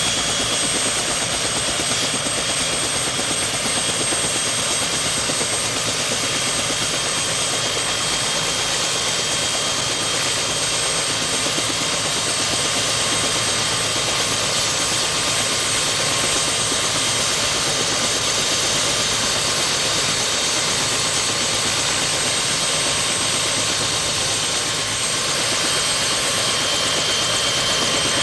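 Steady engine-like mechanical roar with faint high whining tones over it, holding level without change.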